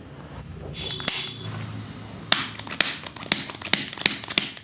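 A quick run of about nine sharp cracks in two seconds as a chiropractor manipulates the lower back, after a brief rustle about a second in.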